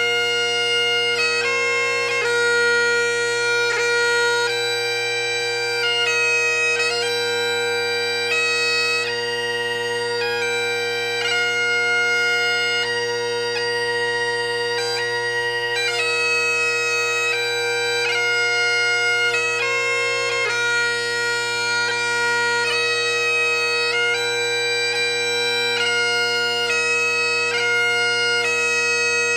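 Bagpipe music: a chanter melody of held notes stepping up and down over steady, unbroken drones.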